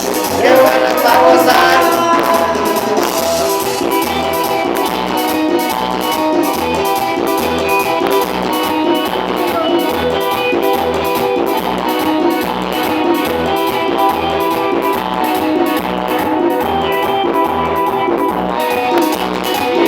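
Band music with guitar over a steady, even bass beat, mostly instrumental.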